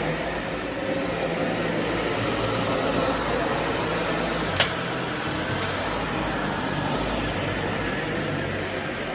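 Vacuum cleaner running steadily, a continuous rushing noise over a low motor hum, with one sharp knock about halfway through.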